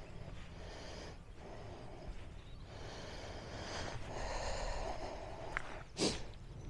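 A person breathing audibly in several long breaths while walking a muddy footpath, with one sharp knock about six seconds in.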